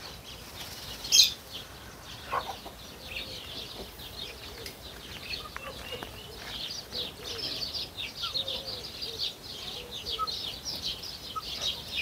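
Farmyard birds: many short high chirps that grow denser after about five seconds, with a few soft low hen clucks. A brief loud rustle comes about a second in.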